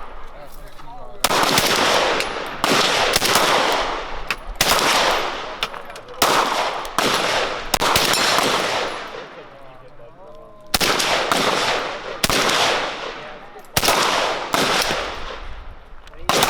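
Gunshots at an outdoor range: about a dozen single shots spaced irregularly, each cracking loud and trailing a long echo. There is a longer pause of a couple of seconds past the middle.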